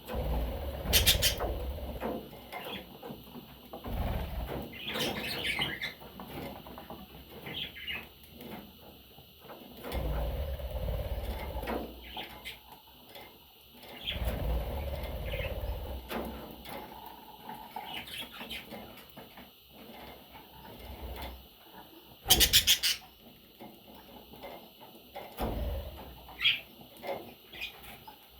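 Budgerigar chicks chirping in short, scattered calls, mixed with low rumbling handling or movement noise. There are loud scratchy bursts about a second in and again about 22 seconds in.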